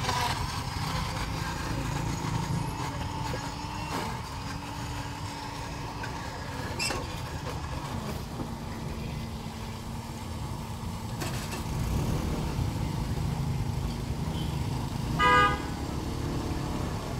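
Steady low rumble of street traffic with a vehicle horn tooting once, briefly, about fifteen seconds in.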